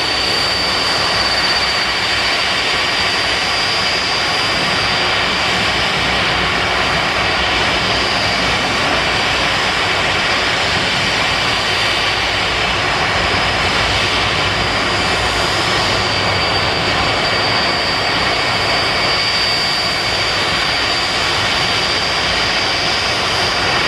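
Boeing 747-400's Rolls-Royce RB211 turbofan engines running steadily, a constant rushing noise with a steady high-pitched whine on top.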